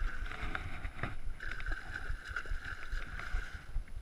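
A hooked fish splashing at the surface beside a small boat, with wind rumble and knocks on the camera microphone. A steady high whirr sounds for about two seconds in the middle.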